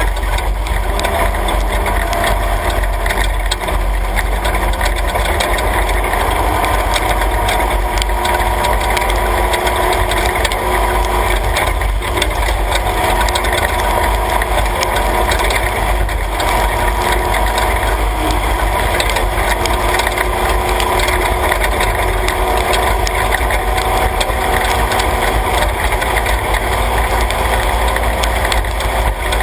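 Class 3 off-road race truck driving on a dirt road, heard from inside the cab: a steady, loud engine drone mixed with road and tyre noise, with a few light knocks from the rough surface.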